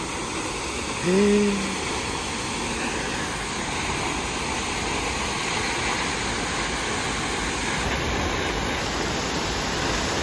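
Steady rush of falling water from the Pulhapanzak waterfall, an even unbroken noise. About a second in there is a short vocal sound.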